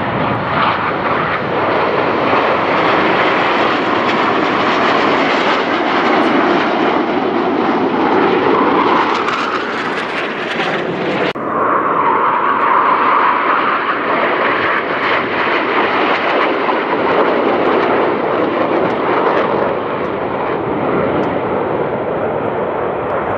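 Twin-turbojet Northrop F-5E Tiger II jets flying a formation display, a loud, steady jet roar with a hiss whose pitch slowly shifts as the formation moves. About halfway through, the sound changes abruptly to another stretch of the same jet noise.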